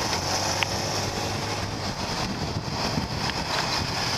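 Motorbike riding in scooter traffic: steady wind rush over the microphone with a low engine hum beneath that fades about halfway through.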